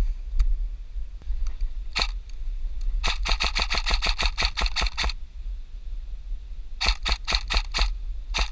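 Airsoft gun firing in rapid bursts of sharp clicking shots, about six a second: a single shot about two seconds in, a long burst a second later, and a shorter burst near the end.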